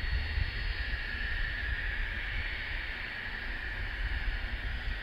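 Avro RJ100's four Lycoming LF507 turbofans with a steady high whine at the start of the take-off, over a gusty low rumble of wind on the microphone.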